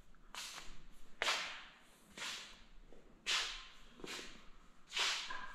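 Soft scuffing swishes about once a second, like footsteps on a hardwood floor.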